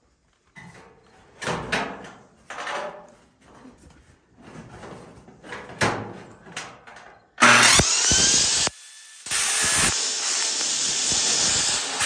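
Sheet tin clattering and scraping as it is handled, then about seven seconds in a circular saw with its blade reversed starts cutting the old tin. The harsh, loud cutting noise stops briefly, then runs on steadily.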